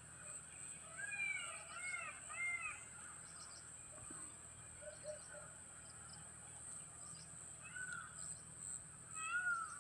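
Birds calling outdoors: a quick run of three short arched calls about a second in, then single calls near the end, over a steady high-pitched hiss.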